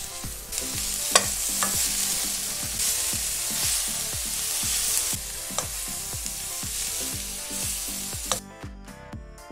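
Red cabbage, carrot and broccoli sizzling in a hot oiled wok as they are stirred and tossed with a spatula, with a few sharp knocks of the spatula against the pan. The sizzling stops abruptly near the end.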